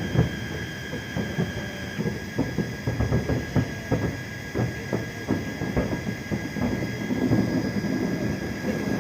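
Distant fireworks bursting in a fast, irregular run of bangs and crackles over a low rumble.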